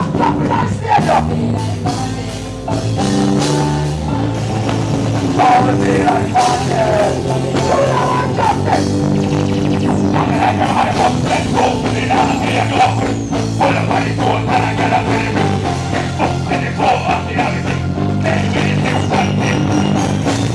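Loud music with a heavy beat and bass, played through a stage sound system at a live show.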